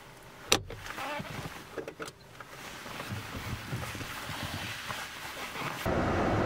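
Rustling and shuffling of clothing and bags as someone moves about inside a car, with a sharp click about half a second in and a few lighter clicks around two seconds in. Near the end the sound cuts abruptly to a louder steady hum.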